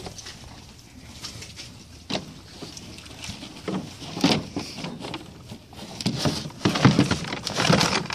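A horse moving about close by on soft ground, with irregular scuffs and knocks. Near the end come denser, louder rustling and knocking as it pushes its muzzle into a plastic feed bucket to eat.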